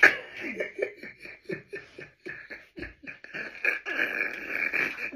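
Siberian husky 'talking': a long, drawn-out howling whine held steady through, with a man laughing alongside in short repeated bursts.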